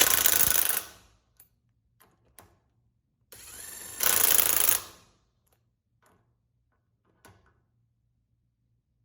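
MYTORQ MYBT-IM+ cordless brushless impact wrench running two short tightening cycles. The first burst comes at the start; the second comes about four seconds in, after a brief quieter run-up, and hammers for about a second. Faint clicks come in between.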